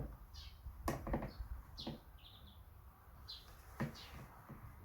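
Birds chirping in the background, short scattered calls, with a few sharp clicks and knocks from chainsaw parts and tools being handled on the bench.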